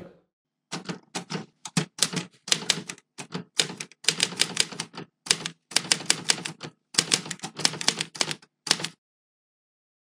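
Manual typewriter typing: a run of sharp key strikes in quick, uneven clusters, starting just under a second in and stopping about a second before the end.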